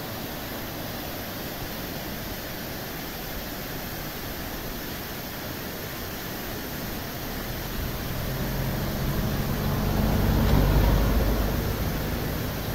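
Steady rushing noise, then a motor vehicle's engine approaching and passing close, growing louder from about eight seconds in, loudest near ten to eleven seconds, then fading.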